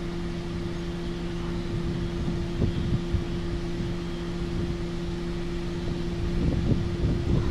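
A steady mechanical hum with two constant tones over a low wind rumble on the microphone, with a few faint handling taps near the middle and the end.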